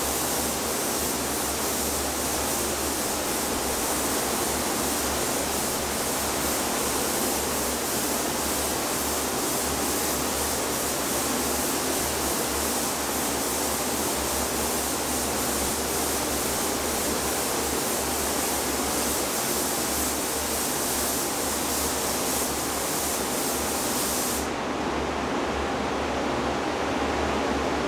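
Paint spray gun hissing steadily as compressed air and paint are sprayed. It cuts off a few seconds before the end. Beneath it the spray booth's ventilation runs as a steady rushing noise.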